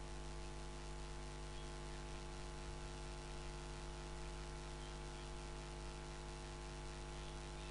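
Steady electrical mains hum, a stack of even unchanging tones with a faint hiss underneath.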